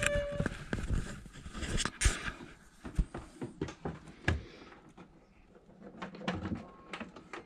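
Hands fitting a battery monitor display cable and its small plug into a plastic instrument panel: a scattered run of small clicks, knocks and rubbing sounds.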